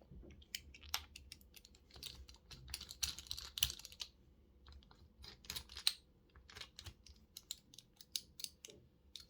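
Irregular light clicks and clacks of small clamps being handled and fitted around a phone's glued back cover to hold it under pressure while the glue dries.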